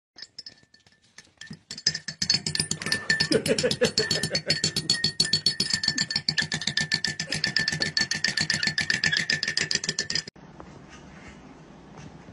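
A metal spoon clinking rapidly and continuously against a ceramic mug as tea is stirred, with a steady high ringing from the mug. The clinking stops sharply about ten seconds in.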